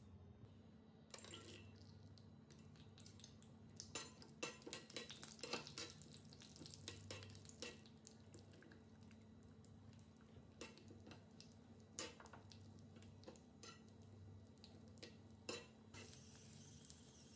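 Cashew nuts dropped into a small iron kadai of ghee, quietly clicking and clattering against the pan, with the taps thickest a few seconds in. Later, a metal spoon taps and scrapes the pan as it stirs the nuts.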